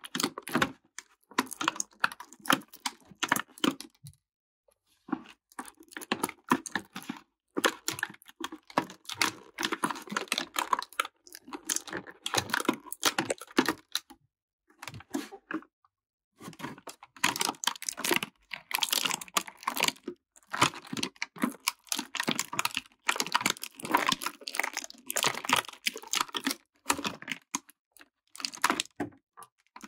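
Clear plastic blister tray crinkling and crackling in irregular bursts as an action figure and its accessories are worked loose from it, with brief pauses about four seconds in and again around fifteen seconds.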